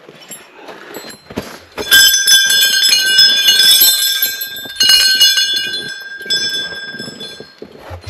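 Small brass bells hanging at a stone shrine ringing, several at once: they are struck about two seconds in, struck again near the middle, and the ringing fades away near the end.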